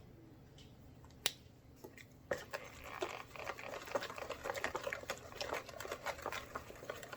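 A single click about a second in, then from about two seconds in, sponge cake batter being stirred briskly in a bowl to mix in the food colouring: a busy run of small clicks and scrapes.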